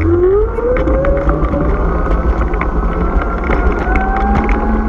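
Glion Dolly electric kick scooter riding on asphalt: its electric motor whines, the pitch rising as the scooter gathers speed in the first second or two and then holding, over a steady rumble from its solid honeycomb tires and wind on the microphone. Scattered light clicks and knocks come from the tires going over bumps and cracks in the pavement.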